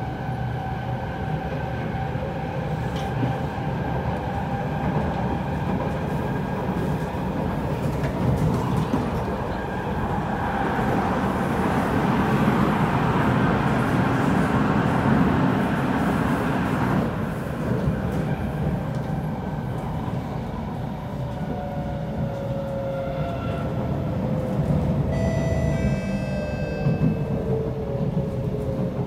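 Kawasaki C751B metro train heard from on board, running at speed with steady wheel-on-rail rumble that swells and grows louder through the middle. Over the last several seconds the traction motors' whine falls steadily in pitch as the train slows for the next station, with a brief high squeal partway through the slowdown.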